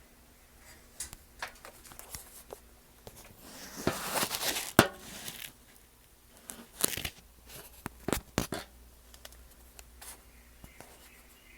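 Handling noises: a rustling, tearing sound lasting about two seconds in the middle, with scattered sharp clicks and knocks before and after it.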